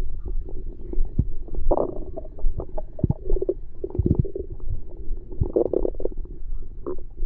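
Human stomach gurgling and rumbling: a continuous low bubbling with louder gurgles about two seconds in, around three and a half seconds and near six seconds, and a few soft low thumps between them.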